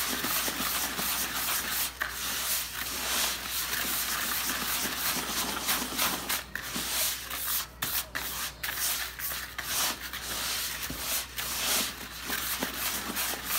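Hand mixing chow carp bait of cream-style corn and grape Jell-O in a plastic bucket: a continuous gritty rubbing and scraping in uneven strokes. The mix is still hard, not yet soft enough to pack.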